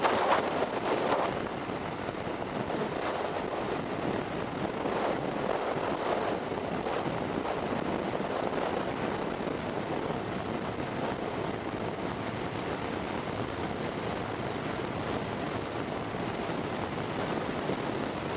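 Wind rushing over the microphone of a motorcycle riding at road speed on a blustery day, a steady rush with louder buffeting in the first second or so.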